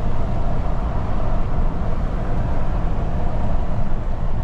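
Steady road and engine noise inside a moving car's cabin, a low rumble with no change.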